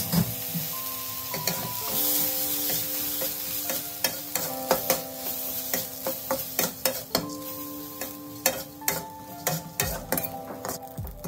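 A metal spatula scraping and knocking against a wok as glutinous rice is stir-fried, with a light sizzle. The scrapes and taps come sparsely at first and grow quick and frequent from about four seconds in.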